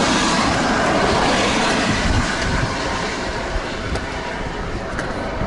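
Strong storm wind roaring and buffeting the microphone in a dense, rumbling rush, loudest in the first couple of seconds and easing a little after.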